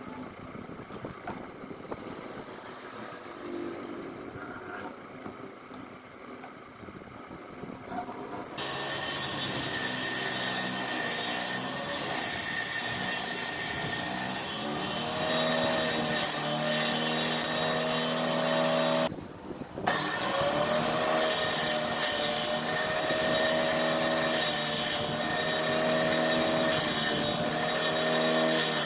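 Electric drill driving a saw blade in a homemade table-saw rig, cutting wood. After quieter handling sounds, it starts about a third of the way in and runs loud with a steady motor whine, cutting out briefly about two-thirds through before running again.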